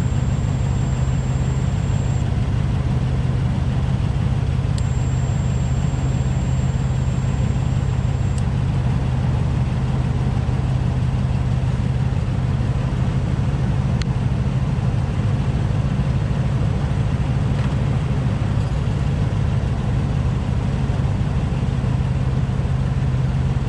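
Nissan Titan's 5.6-litre V8 idling steadily.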